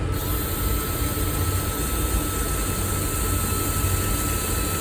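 Hypertough 4-volt angle-grip cordless screwdriver's motor running steadily with a steady high whine as it drills with a quarter-inch drill bit, struggling under the load.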